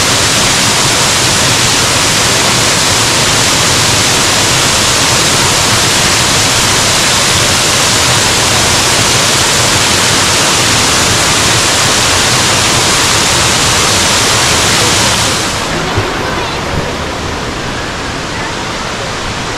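Waterfall: a loud, steady rush of falling water. About three-quarters of the way through it drops a little in level and loses much of its high hiss.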